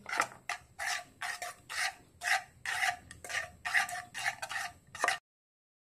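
Metal spoon scraping around a white nonstick frying pan, stirring freshly caramelized sugar syrup in quick, even strokes, about three a second. The scraping stops abruptly near the end.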